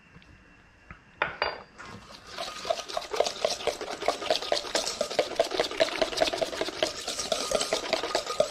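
A small wire whisk beating a thick sauce in a stainless steel mixing bowl: a fast, continuous run of metallic scraping and ticking, with a faint steady ring from the bowl. It starts about two seconds in.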